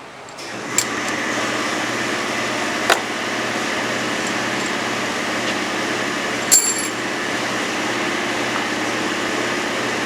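A machine starts running about a second in and keeps going with a steady hum. Three sharp metallic clinks stand out over it.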